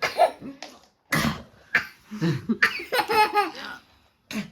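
A young child laughing in several short, high-pitched bursts.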